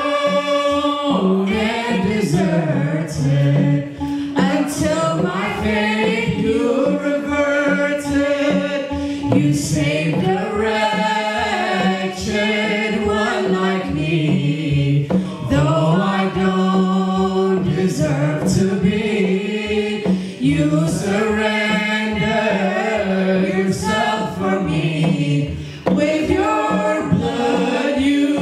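A man and a woman singing an Ethiopian Orthodox Tewahedo mezmur (hymn) in English, the voices holding long notes one after another.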